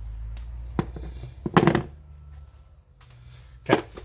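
A few knocks and thunks, the loudest about one and a half seconds in, over a low steady hum that stops about two seconds in.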